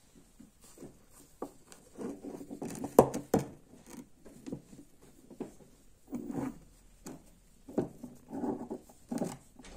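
Cut pieces of a mosaic damascus steel bar being handled on a hard work surface: irregular scraping and sliding of steel on the surface, with a few sharp clicks as pieces knock together or are set down, the loudest about 3 s in.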